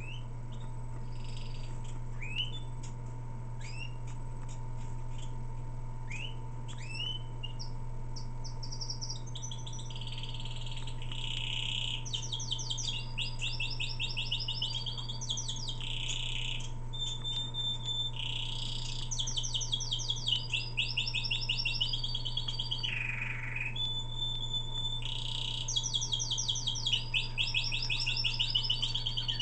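Four-month-old male domestic canary practising his song. At first it gives scattered short rising chirps. From about nine seconds in it breaks into continuous song of rapid trills and rolling, repeated-note phrases.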